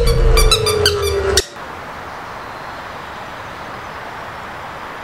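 Film sound design: a slowly falling tone over a low bass layer with rapid high chirps, which cuts off abruptly about a second and a half in. A steady hiss follows.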